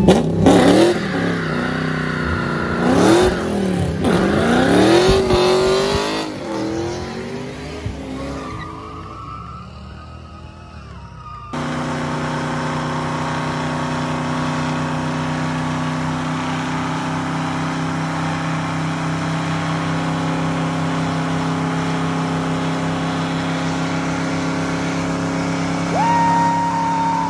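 A car engine revving hard, its pitch rising and falling, with tyres squealing. About eleven seconds in the sound changes to a white classic Chevrolet Chevelle doing a long burnout in place: the engine is held at steady high revs while the rear tyres spin and squeal.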